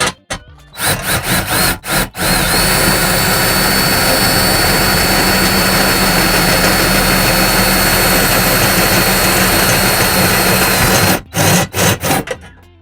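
Power drill turning a titanium-coated step drill bit into a thick metal box, widening a pilot hole. The trigger is pulsed a few times, then the drill runs steadily for about nine seconds with a high motor whine, then a few more short pulses near the end.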